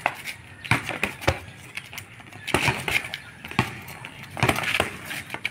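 Boxing-glove punches landing during sparring: a string of sharp slaps and thuds at irregular intervals, bunched in flurries with a cluster near the end.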